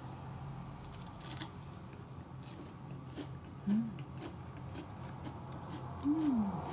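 A person biting into and chewing a biscuit-and-ice-cream sandwich, giving a run of small crunches. Two short rising-then-falling "mmm" hums of enjoyment come about four and six seconds in.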